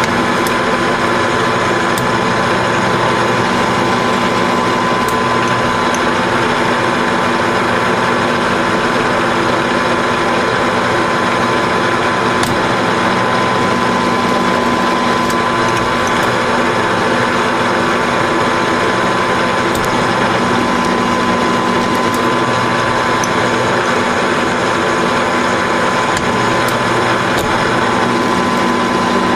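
Grizzly G4003G metal lathe running with its gear train engaged, cutting a 3/8-16 thread in a steel bolt with a threading insert. A steady mechanical whine with a few faint ticks.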